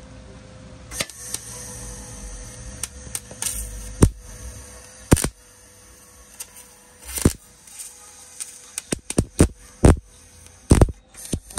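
Wire-feed welder arc crackling, with sharp pops, as beads are laid on steel bumper brackets; a fast run of pops comes near the end.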